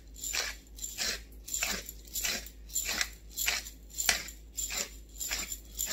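Hand-twisted pepper mill grinding black peppercorns: a gritty crunch with each twist, about two a second.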